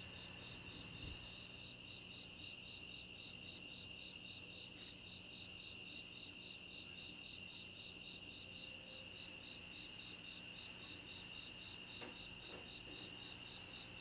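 Crickets chirping faintly in a steady, even pulse: a night insect chorus.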